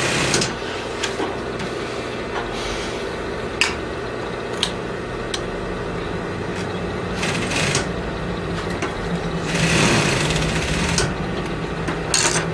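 Industrial sewing machine running and stitching through fabric: a steady motor hum with a few sharp clicks, growing louder for a stretch about ten seconds in.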